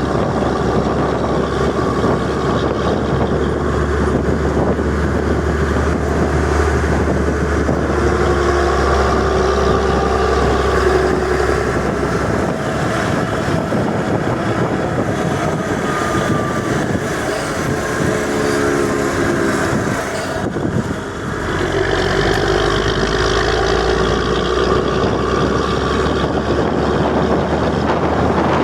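Volvo B10M bus's diesel engine running steadily and loud, its low rumble changing in pitch about twelve seconds in and easing briefly around twenty-one seconds.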